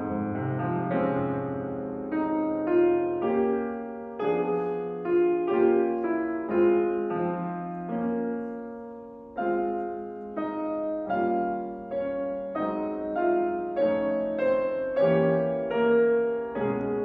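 Solo piano playing a slow classical piece: chords and melody notes struck about one and a half to two times a second, each left to ring and fade.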